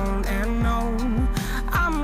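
Background music: a pop/R&B-style song with a steady beat, about two beats a second, and bass.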